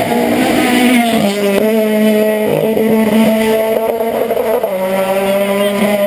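Hillclimb race car's engine at high revs as it comes up to a corner and passes, its note stepping in pitch a few times.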